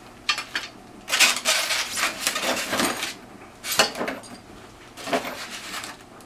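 Small metal ceiling-fan parts (brass brackets and pull chains) being handled and clinking together, in several short bouts of rattling.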